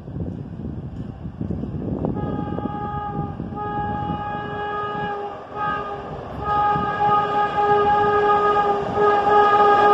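New York City subway train approaching with a rising rumble, sounding its horn in long held blasts from about two seconds in, broken by short gaps and getting louder.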